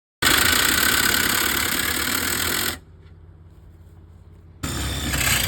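Electric motor running steadily with a whine as a trailer jack is raised: loud for about two and a half seconds, then quieter, then loud again about four and a half seconds in.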